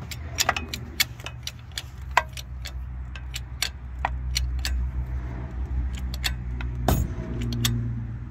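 Hydraulic bottle jack being pumped by its handle to press a bearing onto a ring gear carrier, giving repeated sharp metallic clicks and clacks. A steady low drone runs underneath.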